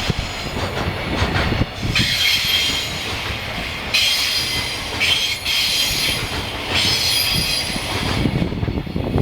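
Freight train wagons rolling past, with a steady rumble and clatter of wheels on rail. A high wheel squeal comes and goes in several stretches and stops near the end.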